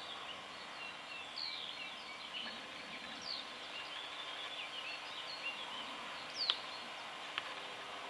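Small birds chirping and twittering in a busy morning chorus over a steady background hiss, with one louder, sharp downward-sweeping call about six seconds in and a brief click soon after.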